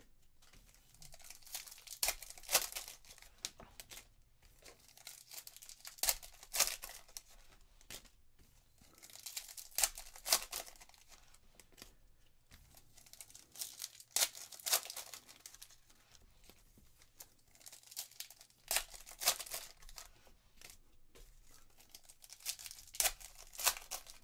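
Foil trading-card pack wrappers being torn open and crinkled, in crackly bursts every few seconds, with the cards handled and squared into stacks between.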